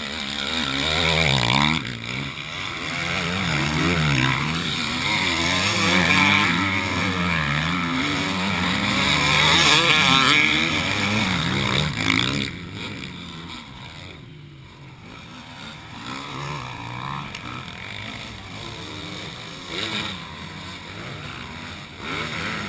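Motocross bike engines racing on a dirt track, their pitch rising and falling again and again as the riders rev and back off the throttle. The engines are loud and close for the first half, then suddenly fainter and more distant for the rest.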